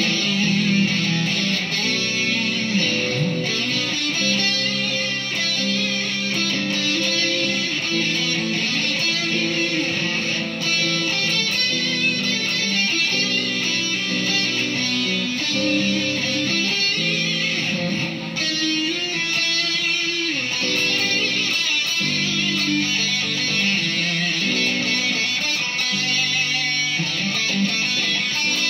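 Squier Bullet Stratocaster electric guitar played through a Marshall Silver Jubilee amp with Celestion Greenback speakers, with distorted tone. It plays a continuous run of held notes and riffs.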